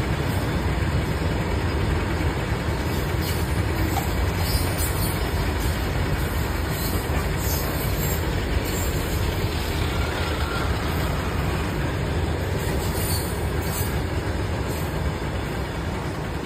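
A goods train of Indian Railways open freight wagons rolling past at high speed: the steady rumbling noise of wheels on the rails, easing off a little near the end as the last wagons go by.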